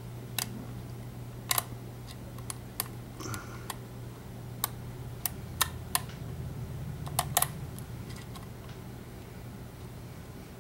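Lock pick and tension wrench working the pins of an EVVA ALS five-pin euro cylinder with security pins: light, sharp metallic clicks at an irregular pace as the pin stacks are lifted and set, over a steady low hum.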